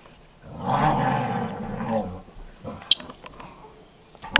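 African grey parrot giving a rough, growling grumble lasting about a second and a half, starting under a second in. A sharp click follows a little later, and another comes near the end.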